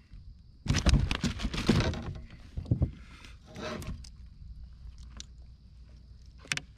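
Handling noise in a fishing kayak: a dense burst of knocks and rustles about a second in, with shorter bursts near two and a half and three and a half seconds.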